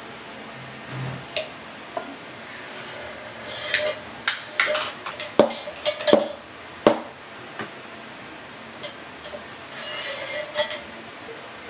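Glass and metal coffee-making gear being handled on a counter, a French press among it: scattered clinks, knocks and short scrapes, with a cluster of sharp knocks in the middle and a few more near the end.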